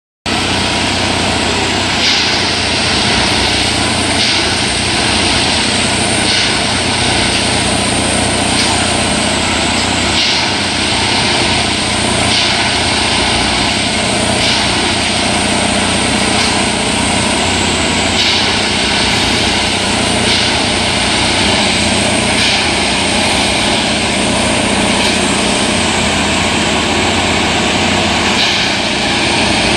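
09-3X track tamping machine working: its diesel and hydraulics run loud and steady, with a brief hiss or clatter about every two seconds as the tamping units cycle into the ballast.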